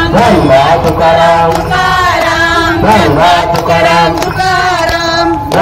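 A group of devotees chanting a devotional bhajan together in a sustained, continuous melody, with hand clapping along.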